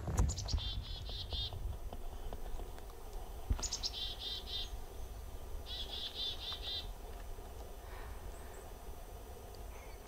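Chickadee giving its chick-a-dee call three times. Each call is a couple of quick high notes followed by a fast run of buzzy repeated notes.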